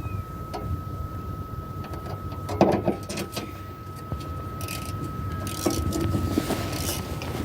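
Hand tools knocking, clinking and scraping on metal while a belt is fitted to a truck's auxiliary power unit, with one loud knock about two and a half seconds in. A low rumble and a thin steady whine run underneath.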